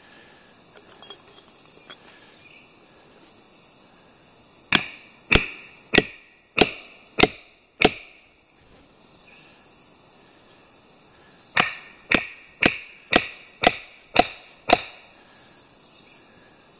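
A hammer driving a wedge into a maple log. Six sharp strikes come about two a second, then after a pause of a few seconds seven more at the same pace, each ringing briefly.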